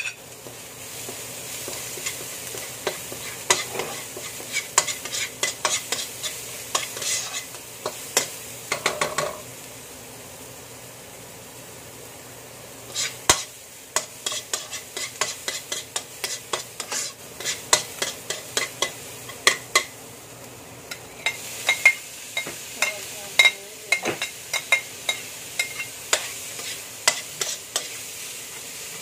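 Metal spoon scraping and clinking against a wok in quick runs, over a steady sizzle of garlic, onion and then ground meat frying in oil. The clinking pauses for a few seconds about ten seconds in, leaving only the sizzle.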